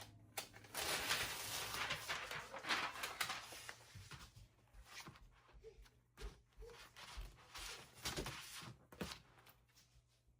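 Hands handling the laminated magnet sheet on its cutting mat to load it into a Cricut: a few seconds of rustling and scraping, then scattered light taps and clicks.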